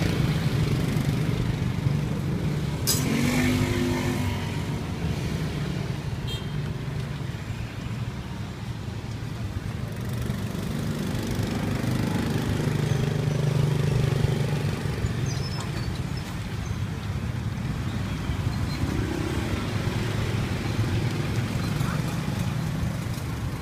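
Street traffic: engines running with a steady rumble, one of them rising in pitch briefly about three seconds in, with voices in the background.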